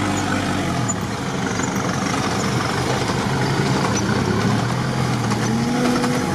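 Off-road vehicle's engine running steadily under way, heard from inside the cabin, with a steady rush of road noise. The engine note drops about a second in and climbs again near the end.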